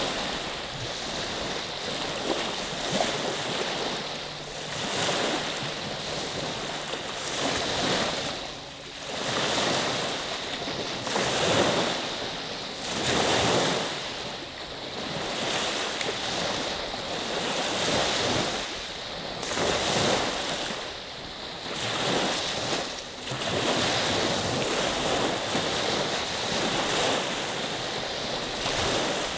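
Small freshwater waves on Saginaw Bay, Lake Huron, rolling in and washing onto the beach, one swell of surf every couple of seconds.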